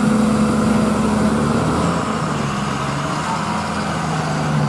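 Diesel engine of a loaded Tata multi-axle truck running at low speed as it crawls past on a rough dirt road: a steady low engine note whose pitch drops a little about two seconds in.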